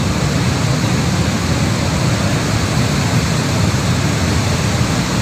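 Steady, loud rush of a muddy flash flood (debris flow) surging down the channel and against a bridge, a dense low-heavy roar of fast water with no let-up.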